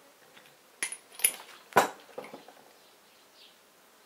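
Steel parts clinking and knocking on a workbench as a U-650 tractor's hydraulic distributor spool is set down among tools: four sharp metallic knocks within about a second and a half, the third the loudest, some with a brief ring.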